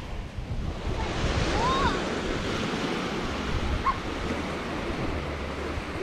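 Sea surf washing onto the shore in a steady wash of noise that swells about a second in, with wind rumbling on the microphone. A couple of faint short high calls come through around two and four seconds in.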